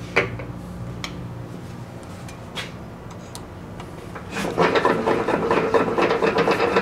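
A few light clicks, then about four and a half seconds in a louder, continuous rough scraping and clattering begins as a hand-turned tap, guided from the milling machine's spindle, cuts threads into a metal part held in the vise.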